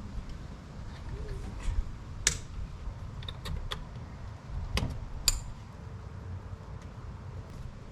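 Several sharp metallic clicks and clinks of tools and parts being handled while fitting a cold air intake, over a low steady rumble.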